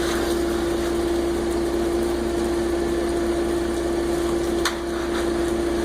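Concrete mixer truck's engine running steadily with an even hum, with a single sharp knock about four and a half seconds in.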